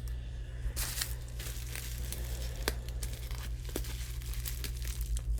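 Packing wrap crinkling and rustling with irregular crackles and some tearing, as a resin kit part is unwrapped by hand.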